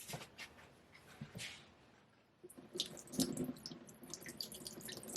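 Water dripping and splashing, with small clicks and spatters, as the Japanese natural whetstone is wetted for sharpening; the splashing grows busier about halfway through.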